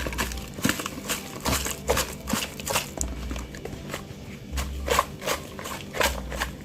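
Irregular clicks and taps, several a second, with low thumps in between: a seasoning container being handled and shaken over the raw shrimp.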